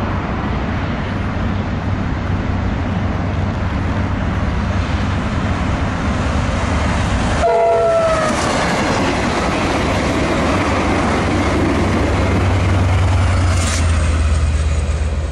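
Train noise from an Amtrak Cascades Talgo passenger train led by an F59PHI diesel locomotive: a steady rumble of wheels on rail under a low engine drone. A short horn sounds about halfway through, and the locomotive's engine drone grows louder as it passes close by near the end.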